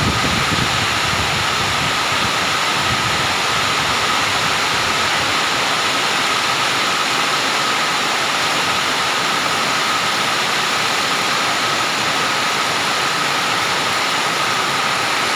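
Heavy storm rain and wind: a steady, loud rushing hiss, with a faint steady high tone running through it.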